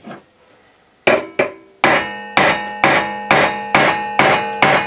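Hammer blows on a bolt and washer, driving a spindle bearing home into the cast iron headstock of a DML305 lathe. About nine sharp metallic strikes: two lighter taps about a second in, then a steady run at about two a second. The struck metal rings on between the blows.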